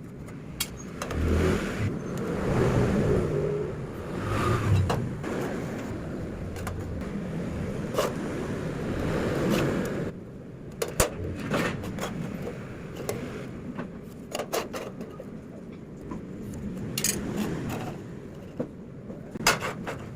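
Metalworking noise: scraping and rumbling that swells and fades over the first half, then a run of sharp, irregular clicks and taps of metal pieces in the second half.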